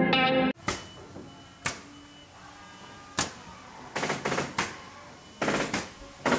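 Background music cuts off about half a second in. After that come separate sharp clicks and knocks every second or so, some in quick rattling clusters, a few with a faint ringing tone after them.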